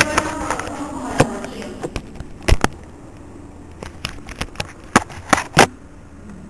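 A series of irregular sharp clicks and knocks, with a close pair a little past two and a half seconds in and a quick cluster of several near five to six seconds in.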